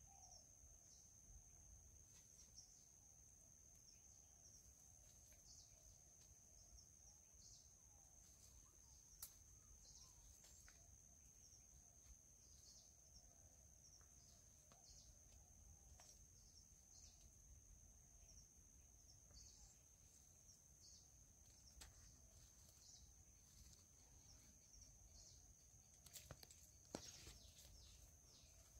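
Near silence: a faint, steady high-pitched whine runs throughout, broken by scattered soft clicks, with a small cluster of them about two seconds before the end.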